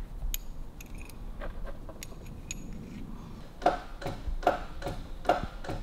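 Loose steel bolts and nuts clinking against each other as they are picked through by hand, then a run of even knocks about two a second.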